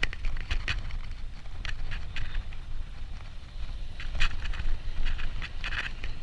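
Wind rushing over the microphone as a Specialized Rockhopper 29er mountain bike rolls along a paved road, with irregular clicks and rattles from the bike.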